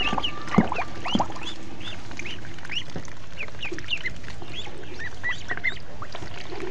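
A group of domestic ducklings peeping over and over, many short high chirps overlapping several a second, with a sharp knock about half a second in.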